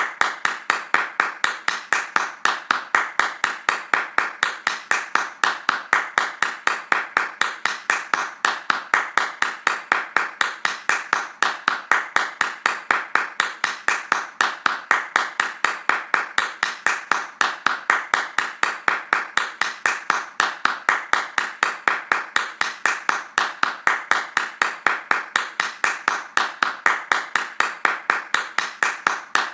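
Hands clapping fast in a quick, even, unbroken rhythm.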